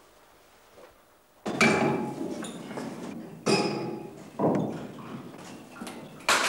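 A run of loud knocks and clanks: the first and loudest about a second and a half in, then three more, each fading out over about a second with a faint ring.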